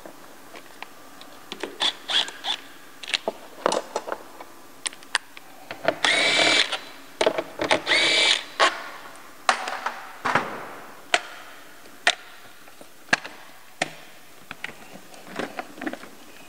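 Cordless ratchet whirring in two short bursts, around six and eight seconds in, backing out fasteners on the factory air box. Scattered clicks and knocks of tools and plastic intake parts being handled come between them.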